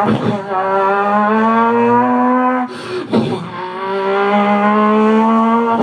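A person's voice doing a vocal sound effect: two long, steady, held tones, each about two and a half seconds, broken by a short intake about three seconds in.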